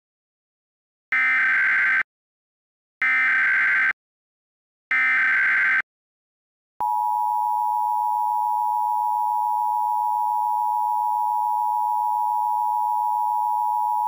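Emergency Alert System broadcast tones: three short screeching SAME data header bursts about two seconds apart, then the long steady EAS attention tone starting about seven seconds in.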